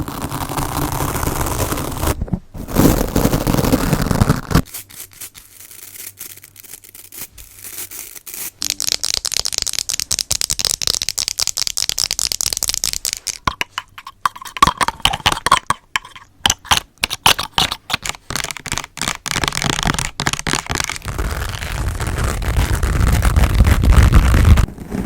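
Fast, aggressive ASMR tapping and scratching close to a microphone: long runs of rapid sharp taps, broken up by stretches of rubbing or scraping noise.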